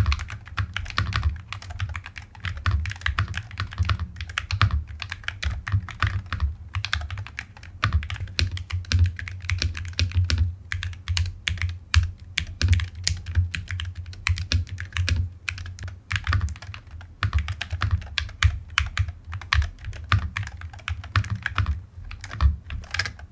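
Fast, continuous typing on a Mchose ACE 60-series Hall effect (magnetic switch) keyboard: a dense run of keystrokes with only brief pauses, as a typing sound test.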